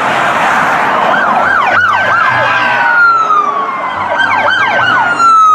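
Police car sirens: a long wail slowly falling in pitch, overlapped twice by fast rising-and-falling yelps, over road noise. The sound cuts off suddenly at the end.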